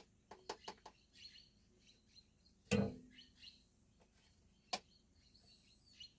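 Light clicks and taps of a small plastic measuring spoon against a plastic tub and the bread-machine pan as powdered milk is scooped out, with one louder knock about three seconds in and another click near the end. Faint bird chirps.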